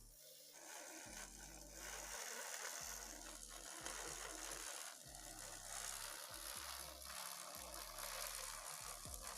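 Steady hiss of steam jetting from a homemade steam turbine's nozzle, starting about half a second in, over background music.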